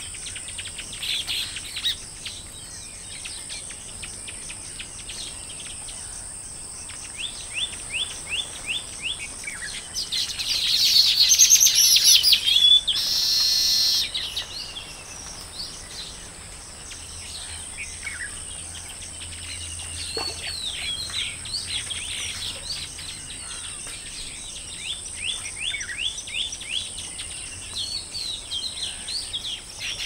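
Colony of baya weavers chattering, with many short chirps and quick runs of repeated notes, and about a third of the way in a loud outburst of massed calls ending in a brief buzzy wheeze. A steady high-pitched drone runs underneath.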